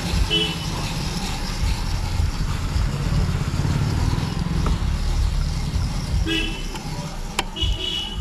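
Street traffic rumbling steadily, with short vehicle horn toots about three times: near the start, about six seconds in, and near the end.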